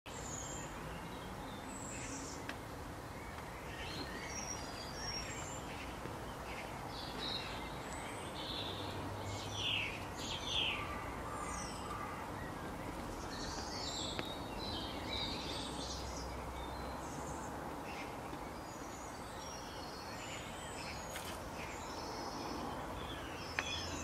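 Woodland ambience: several birds chirping and calling in short, scattered notes over a steady background hiss.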